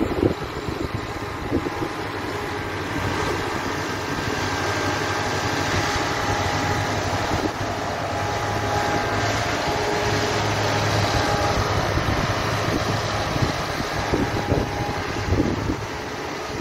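Diesel engines of beet-harvesting machinery running steadily under work, a tractor with its harvester and a self-propelled beet loader, giving a continuous low hum. A few low bumps come near the start and toward the end.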